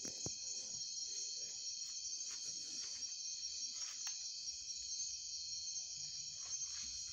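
A night chorus of crickets: a steady, high-pitched trill that does not change in level. A few faint clicks sound over it.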